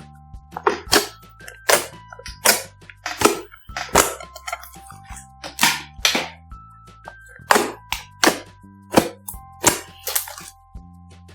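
Sharp pops and crackles of slime being squeezed and worked by hand, over a dozen in quick irregular succession, over light pop background music.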